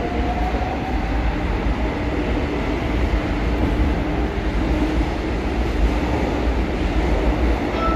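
São Paulo Metro Line 2 train running through a tunnel, heard from inside the passenger car: a steady rumble of the car and wheels, with a faint steady whine over it.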